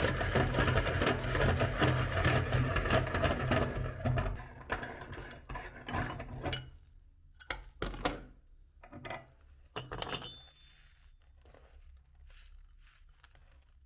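Electric meat grinder running and crunching hard-candy lollipops, then winding down about four seconds in. Scattered clicks and knocks follow until near the end.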